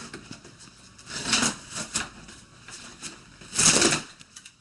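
Cardboard shipping box being opened by hand: tape, cardboard and packing material rustling and tearing, with a louder burst about a second in and a louder one near the end.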